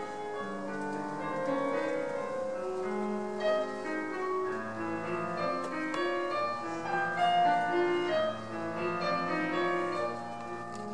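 Classical piano music playing, slow passages of held notes.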